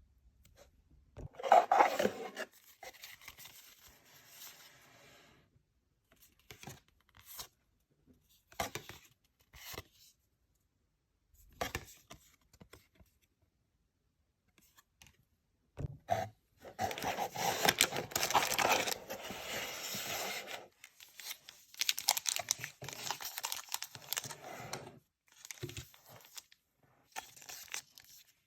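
Pokémon card booster-pack wrappers being torn open and crinkled by hand, with scattered small clicks and rustles of handling in between. There are two main tearing spells: a short, loud rip about two seconds in, and a longer one from about seventeen to twenty-five seconds.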